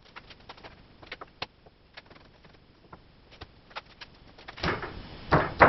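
Wooden 2x4 framing lumber knocked and shifted into place in a table frame. First come scattered light clicks, then several louder wooden knocks and scrapes near the end.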